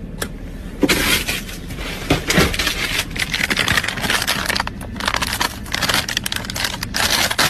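Crinkling and crackling of food packaging being handled, a dense run of small sharp clicks starting about a second in.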